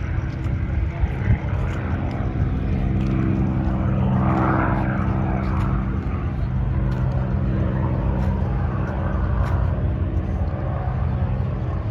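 Propeller aircraft engine running, a steady drone that swells briefly about four to five seconds in.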